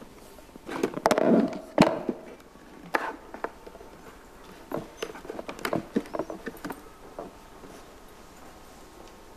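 Handling noise at a lectern: knocks, clicks and rustles of a laptop and its cables being set up close to the microphone. The loudest knocks come in the first couple of seconds, then scattered lighter clicks, dying away about two seconds before the end.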